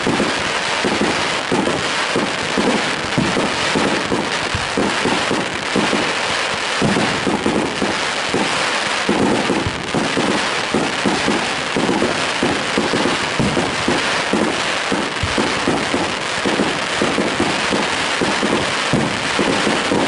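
A dense barrage of aerial fireworks: many bangs in quick succession over a continuous crackle of bursting shells.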